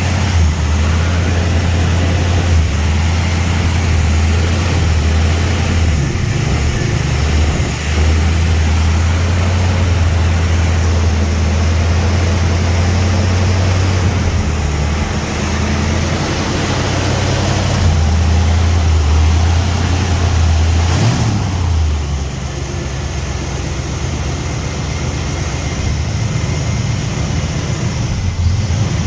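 Engine idling unevenly, its low hum swelling and dropping every few seconds: a surging idle. About two-thirds of the way through the idle shifts briefly, then settles a little lower.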